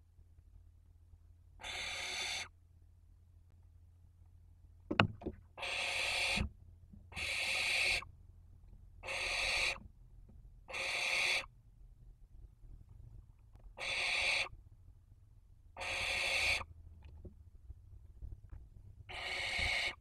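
Barn owls giving harsh, hissing rasps, eight of them, each a little under a second long and spaced irregularly. A sharp knock sounds about a quarter of the way through.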